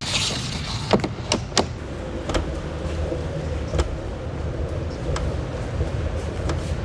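JBL PartyBox 310 party speaker played loud, giving a heavy, steady bass rumble with a few sharp clicks or knocks scattered through it.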